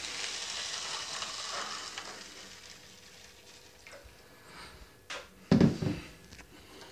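Water poured from a plastic jug into a paper cup of instant tea granules: a splashing hiss for the first two or three seconds that fades away. A loud thump comes about five and a half seconds in.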